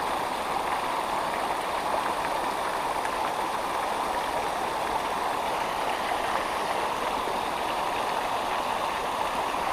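Creek water running, a steady rushing noise that holds even throughout.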